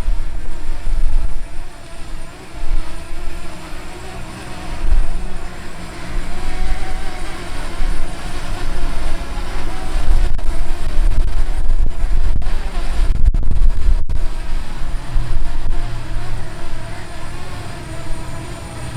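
Wind buffeting the microphone in gusts, with the buzz of a DJI Mavic Mini quadcopter's propellers as it hovers and gets pushed around in the wind.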